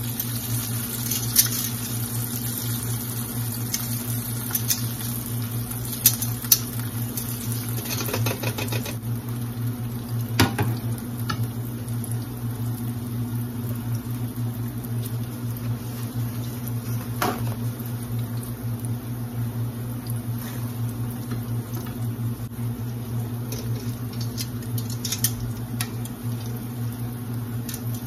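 Battered onion rings deep-frying in hot oil in a cast-iron skillet: a steady sizzling hiss, with a few sharp clicks scattered through, over a steady low hum.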